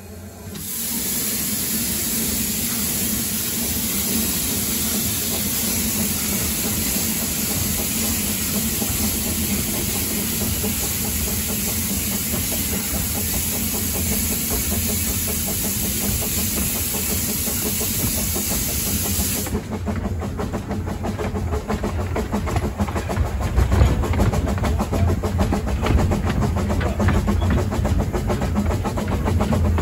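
Quarry Hunslet narrow-gauge steam locomotive with escaping steam hissing loudly. The hiss cuts off suddenly about two-thirds of the way through, leaving the rapid rhythmic beat and rattle of the locomotive working along the track.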